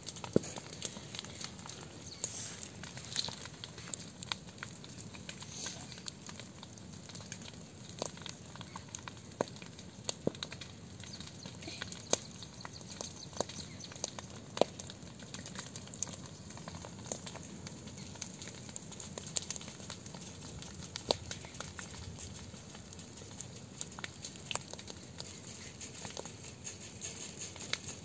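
Grass and brush fire burning, with irregular sharp crackles and pops over a steady background rush.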